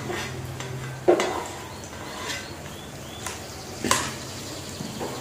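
Metal spatula clanking and scraping against a stainless steel wok as sliced shallots are pushed in and stirred in oil. A sharp clank comes about a second in and another near four seconds, with lighter taps between.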